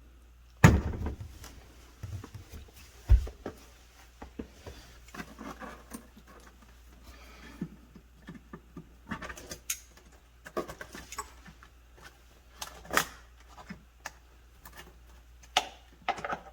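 Irregular clicks, knocks and small rattles of hands working plastic wire connectors and the control board of a GE refrigerator, with a sharp knock about a second in and another about three seconds in.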